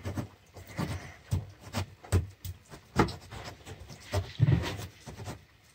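Kitchen knife dicing boiled chicken on a wooden cutting board: irregular knocks of the blade hitting the board, a few a second.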